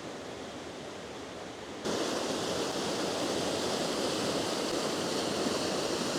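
Steady rush of flowing creek water, which jumps abruptly to a louder, brighter rush a little under two seconds in and then holds steady.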